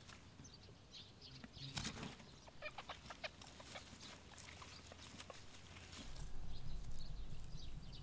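Faint rustling and scratching of young rabbit kits moving about on their straw and leaf nest, with scattered small clicks.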